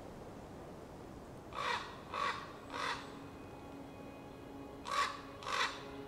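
A crow cawing: three harsh caws about half a second apart, then after a pause of about two seconds two more near the end.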